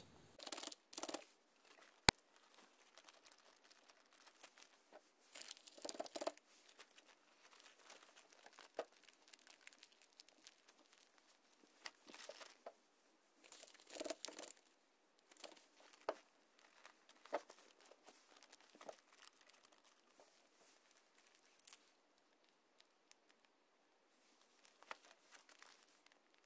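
Faint, irregular crinkling and rustling of plastic zip-lock bags filled with potting soil as they are handled, with soft knocks now and then and one sharp click about two seconds in.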